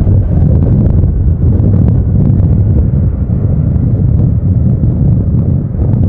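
Strong wind buffeting the microphone over the low rumble of a landing Boeing 737-800's CFM56 jet engines as the airliner rolls out after touchdown.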